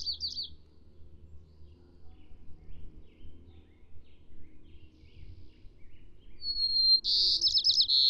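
White-crowned sparrow song: the tail of one song fades about half a second in, and a new song starts near the end with a clear whistle that breaks into fast buzzy trills. A steady low rumble of road traffic runs underneath.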